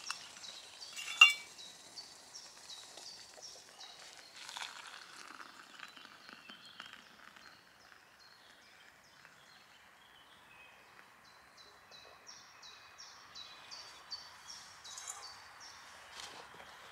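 A metal pot lid lifted off a cooking pot with a sharp clink about a second in, then hot water poured from the pot into a cup, with small knocks of the pot and lid. A bird sings a repeated run of short high notes in the background, early on and again near the end.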